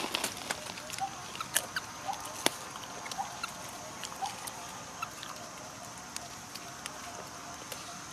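Long-tailed macaques eating on dry leaf litter: scattered sharp clicks and crackles of food being bitten and leaves being handled, the loudest about two and a half seconds in, with short faint squeaks every second or so.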